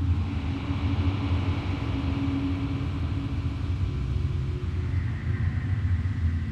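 Low, steady rumbling ambient drone with a few long held tones above it.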